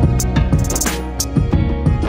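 Background music with a drum beat over held bass and instrument notes.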